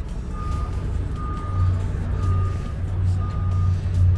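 Electronic warning beeper sounding about once a second, each beep a half-second tone on one steady high pitch, over a low steady rumble.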